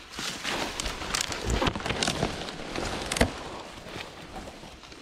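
Crackling rustle of dry grass being pushed and handled at close range, with a sharp click a little over three seconds in.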